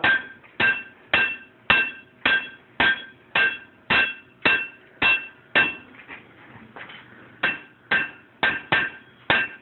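Blacksmith's hammer striking hot iron on an anvil to flatten a small horseshoe, each blow with a metallic ring, about two blows a second. The hammering pauses briefly past the middle, then resumes a little faster.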